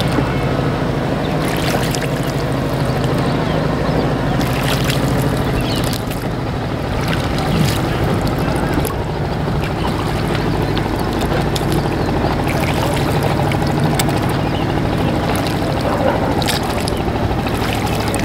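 Rowboat being rowed on a river: the oar splashes and knocks now and then over a steady low rumble of water and wind.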